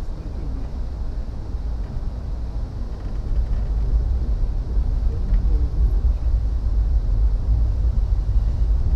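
Steady low rumble of a moving passenger train, heard from inside the passenger car, growing louder about three and a half seconds in.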